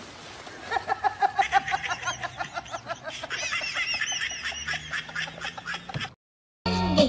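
High-pitched laughter, a rapid string of ha-ha pulses, starting about a second in and cutting off abruptly about six seconds in.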